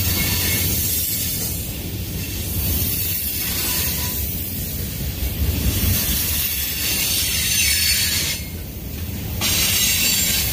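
Loaded bulkhead flatcars of a Union Pacific manifest freight train rolling past at close range: a steady low rumble of steel wheels on rail, with a high hiss that swells and drops out several times as the cars go by.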